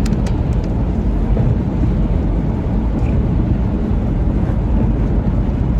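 Steady low rumble of road and engine noise inside a van's cab at highway speed.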